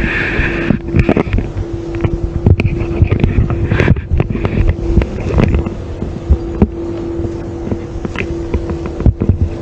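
A car driving slowly over a bumpy dirt road, with wind buffeting the microphone outside the car, frequent knocks and jolts from the rough surface, and a steady hum underneath.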